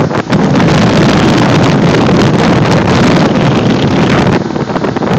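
Motorboat under way, its engine and hull through the water heard under a loud, steady rush of wind on the microphone.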